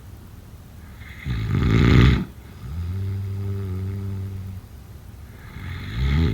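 A person snoring: a loud, fluttering snore about a second in, followed by a steady low hum lasting about two seconds. The next fluttering snore starts near the end.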